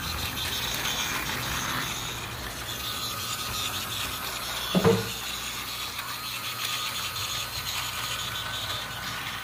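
Tomy BoCo battery toy train running on plastic track: a quiet motor whine with the steady rattle of its wheels rolling on the track. One short knock about five seconds in.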